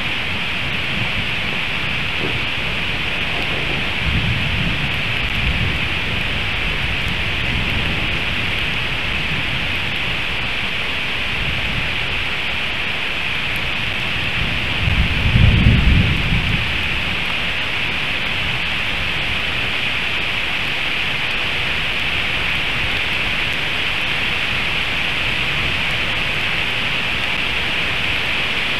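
Heavy rain falling steadily in a thunderstorm, with low rumbles of thunder: a faint one about four seconds in and a louder one lasting a couple of seconds near the middle.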